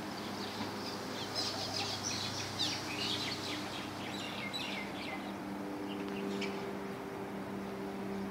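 Birds chirping in a quick, busy string of short high calls, thickest in the first half and thinning out later, over a steady low mechanical hum.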